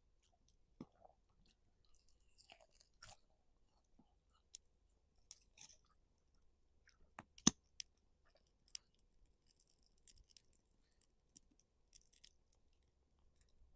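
Faint chewing on a seared pork chop, made up of short crackly patches and scattered sharp clicks, the loudest click coming about halfway through.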